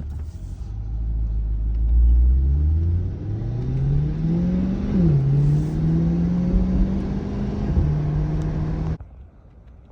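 Chevrolet C8 Corvette's V8 engine pulling away and accelerating: revs climb, drop sharply at an upshift about five seconds in, then climb more gently and level off. The sound cuts off abruptly about nine seconds in.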